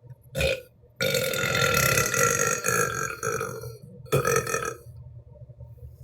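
A young woman burping three times: a short burp, then a long drawn-out one lasting about two and a half seconds, then another short one.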